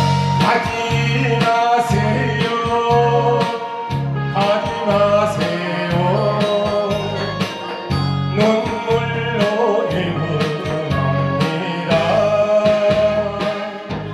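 Korean trot song through a stage PA: a backing track with a steady bass beat and a melody line of long-held notes, with a man singing into the microphone.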